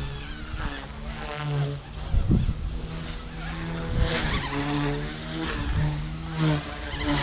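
Blade 150S micro RC helicopter in flight: its electric motor and rotors give a high whine whose pitch dips and recovers as it is thrown around, with gusts of wind rumbling on the microphone a few times.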